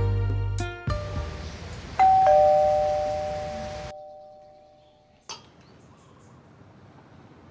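The tail of a short music sting, then a two-tone ding-dong doorbell chime, a high note followed by a lower one, fading out over about two seconds. A single sharp click follows a couple of seconds later.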